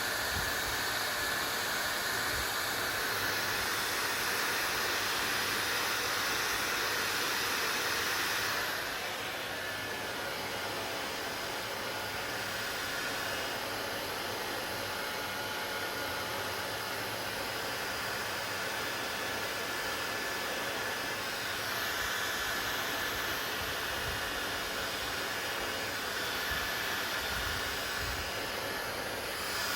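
Electric hair dryer running continuously: a steady rush of blown air with a faint whine. About eight seconds in it turns slightly quieter and duller, and it grows brighter again towards the end.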